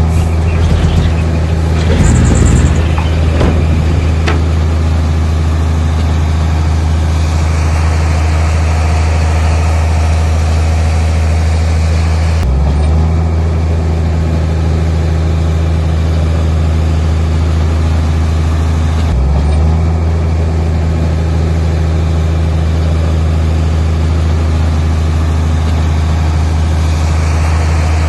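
Heavy diesel engine of an earthmoving machine running steadily with a deep, even drone, with a short hiss about two seconds in.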